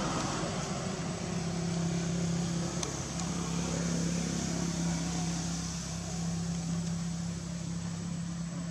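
Steady engine hum holding one low pitch from about a second in, over a constant rushing background noise.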